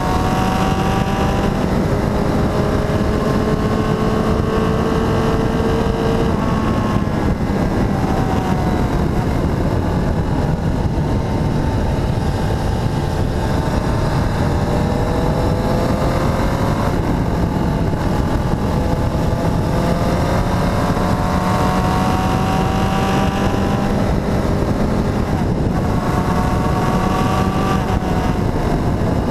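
Motorcycle engine under way, its pitch climbing slowly and falling back about three times, over a steady rush of wind noise on the microphone.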